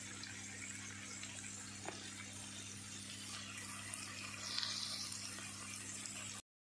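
A steady, faint hiss over a low steady hum, with a small click about two seconds in; the sound cuts off abruptly near the end.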